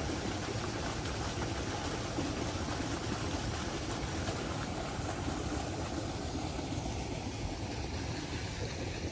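Storm runoff pouring out of a culvert pipe into a swollen creek: a steady rush of falling and churning water, a little duller near the end.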